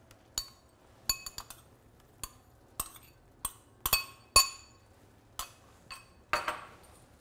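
Metal spoon clinking against a ceramic bowl and a stainless steel pot rim while knocking grated cheese out of the bowl: a dozen or so sharp, ringing taps at uneven intervals, the loudest about halfway through, with a short scrape near the end.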